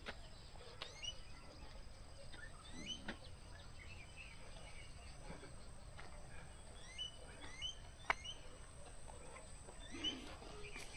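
Faint scattered bird chirps and short calls, each a quick curving note, over a thin steady high whine. A few sharp clicks cut in, the loudest about eight seconds in.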